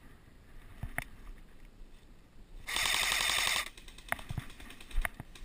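Airsoft gun firing one full-auto burst of rapid shots lasting about a second, midway through. A few single sharp cracks come before and after it.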